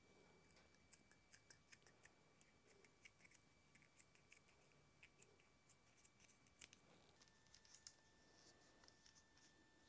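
Very faint, scattered small clicks and snips of hand scissors being worked in short strokes.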